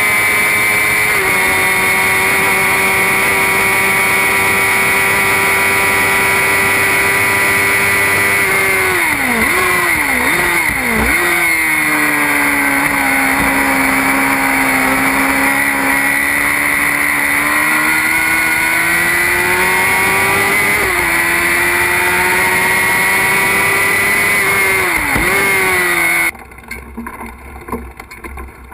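Formula Predator single-seater race car's engine running at high revs, heard onboard. The pitch drops a step about a second in, dips sharply several times around ten seconds in and again near the end, runs lower through a long bend, then climbs back. It cuts off suddenly a couple of seconds before the end, leaving a much quieter background.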